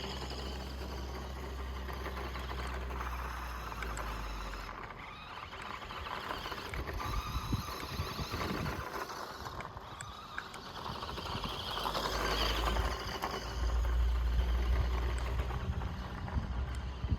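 Electric 1:14-scale RC car (Audi RS Q e-tron) driving over dirt: its motor and gears whir while the tyres scrabble over loose ground. A low rumble runs under the sound for the first few seconds and again near the end.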